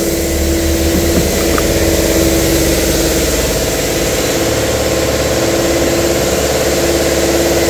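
A motor running steadily with an even, pitched hum that does not change speed.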